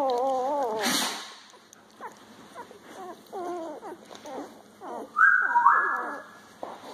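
Newborn puppies whimpering and squeaking while they nurse: a wavering cry at the start, many short squeaks, and two loud, high-pitched squeals about five seconds in.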